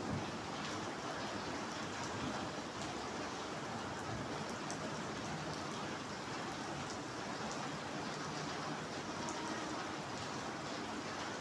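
Steady rain falling on wet paving and shallow puddles: an even hiss of rain with occasional single drop ticks.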